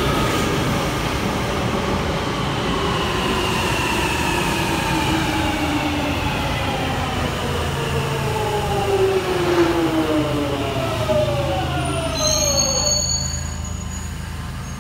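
London Underground Jubilee line 1996 Stock train running into the platform and braking to a stop: its motor whine, several tones at once, falls steadily in pitch as the train slows, over a steady rumble. A brief high squeal sounds about twelve seconds in, as it comes to rest and the whine dies away.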